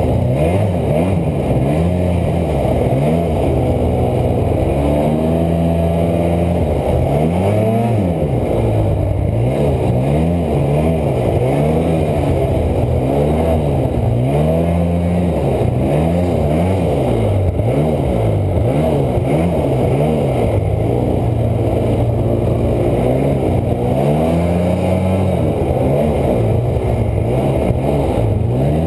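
Polaris snowmobile engine revving up and dropping back again and again as the throttle is worked, the sled pushing a new trail through deep snow.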